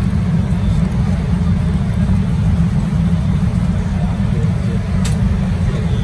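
Steady low rumble of an airliner cabin on the ground shortly before takeoff, with a single sharp click about five seconds in.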